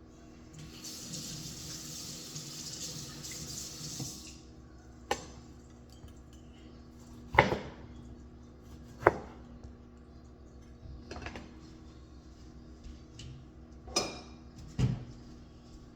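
Kitchen tap running for about four seconds, then dishes and pots clinking and knocking about half a dozen times.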